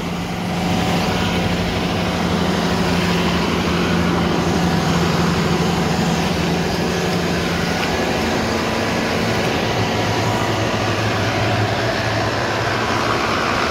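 Engine running steadily under load, driving a big impeller water pump that draws floodwater through a 6-inch suction hose, with a broad rushing noise over the engine note.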